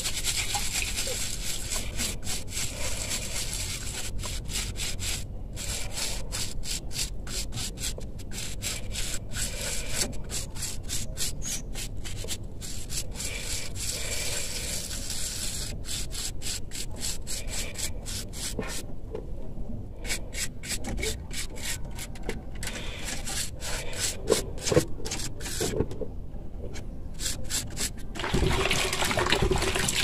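Hands rubbing and scrubbing a wet rubber drain valve plug from a twin-tub washing machine in quick, repeated strokes, with a couple of short pauses. Near the end water splashes into a bucket.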